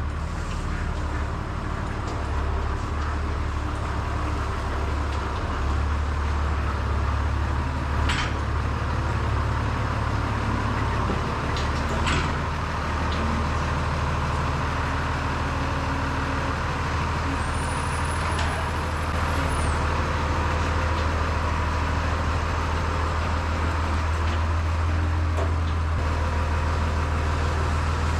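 International 686 tractor engine running steadily at a low, even pitch, with a couple of short knocks about 8 and 12 seconds in.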